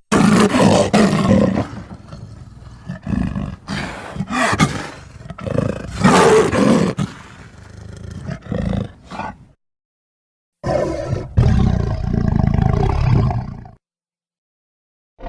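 Rajasaurus dinosaur roar sound effects: a run of rough roars and growls over the first nine seconds or so, then after a sudden dead stop a single roar of about three seconds, cut off abruptly.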